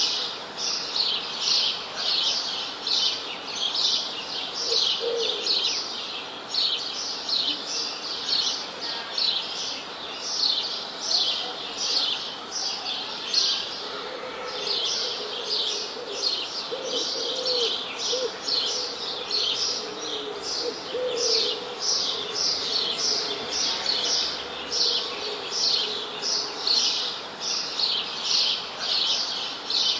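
Birds chirping steadily: short high chirps repeating about twice a second, with a few fainter, lower calls now and then.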